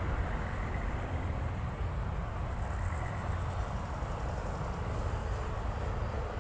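Wind rumbling steadily on the microphone in open country, with insects chirring faintly in the meadow grass at times.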